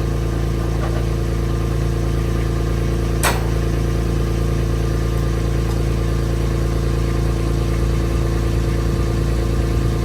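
An engine running steadily at an even pitch, with a single sharp click about three seconds in.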